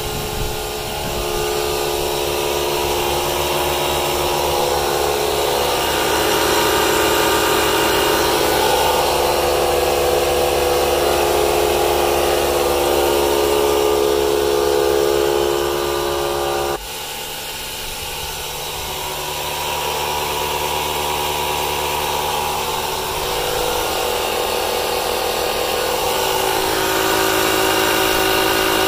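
Several cordless tire inflators running together, a steady buzzing drone of small motors and piston pumps working against rising tire pressure. About two-thirds of the way through, one of them cuts off abruptly and the sound drops, while the others keep running.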